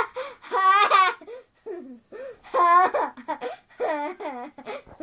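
A young girl laughing hard in high-pitched fits: several peals of laughter, each a run of quick repeated bursts, with short pauses for breath between them.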